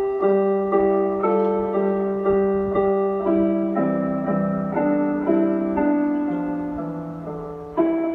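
Chime melody from a Japanese municipal disaster-prevention radio system, played in electronic piano-like tones at about two notes a second, each note fading out. A new phrase begins louder near the end.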